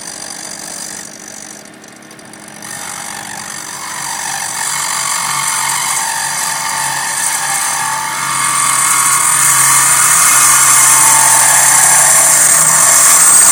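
Home-built bearing lathe running: its electric motor hums as it spins a steel roller bearing, and from about three seconds in a cutting tool bites into the bearing's lip, the metal-cutting noise growing louder and shriller and staying loud from about eight seconds on as the rounded lip is trimmed square.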